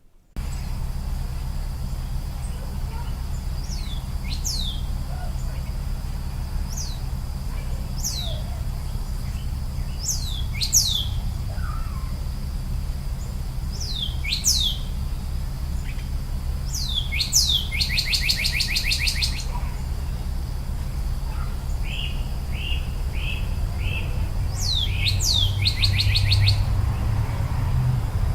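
Small birds calling: thin, sharp down-slurred chirps come in pairs every couple of seconds, with two short buzzy trills, one past the middle and one near the end, all over a steady low rumble.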